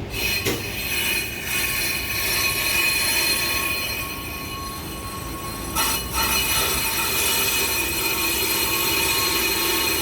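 Brake lathe running with its cutting tool skimming a spinning brake surface, giving a steady high metallic squeal with several ringing tones. A couple of brief knocks come near the start and about six seconds in.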